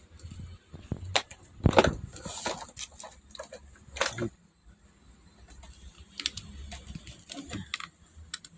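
Screwdriver clicking and scraping against the plastic housing and circuit board of an opened Bluetooth speaker: irregular sharp clicks and short rattles, loudest about two seconds in and again at about four seconds, with a run of lighter clicks near the end.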